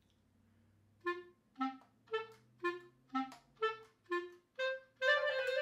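Clarinet playing short, detached staccato notes, about two a second with a clear silence after each, starting about a second in. Near the end a longer note runs into quicker notes.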